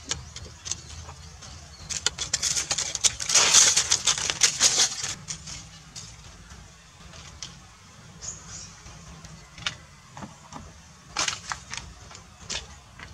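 Scuffling of macaques grappling: scratchy rustling and sharp clicks, densest in a burst about two to five seconds in, then scattered clicks.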